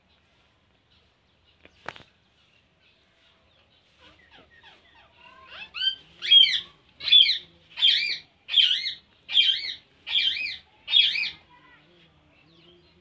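Rose-ringed parakeet giving a run of about seven loud calls, one every three-quarters of a second or so, each rising and falling in pitch, led in by softer chattering notes from about four seconds in. A single sharp click sounds about two seconds in.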